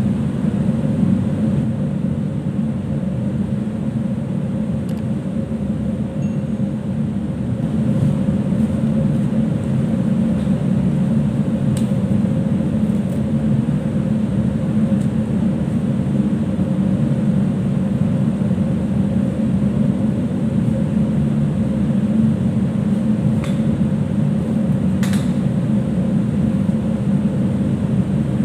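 Steady low drone of a ship's machinery and ventilation, unchanging, with a few faint clicks now and then.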